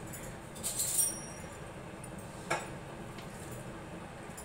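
A metal spoon clinking a few times against a dish about a second in, with a short ring, then a single light tap a moment later.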